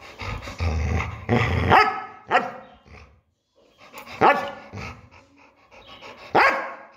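Yellow Labrador retriever barking: a quick run of barks in the first two and a half seconds, then two single barks about two seconds apart.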